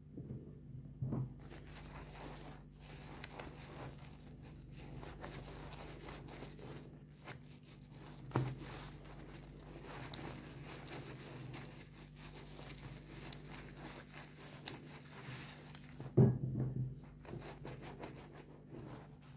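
An orange foam sponge is squeezed and rubbed in soapy water, giving wet squishing and a fine crackle of lather, with a few louder squelches: about a second in, about eight seconds in, and the loudest about sixteen seconds in.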